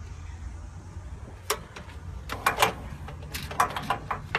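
Sharp clicks and knocks from handling a semi-trailer's air-brake gladhand coupling, in a single click followed by two clusters, over a low steady hum.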